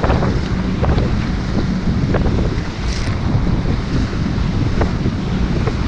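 Wind buffeting the microphone with water splashing during a fast banana boat ride, with a faint engine hum under the rumble.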